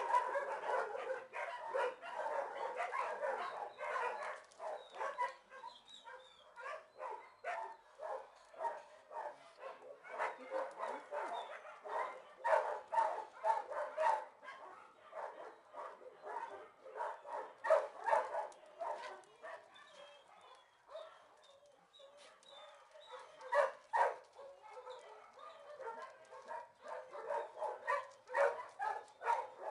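Shelter dogs barking repeatedly, in bouts with short pauses between them.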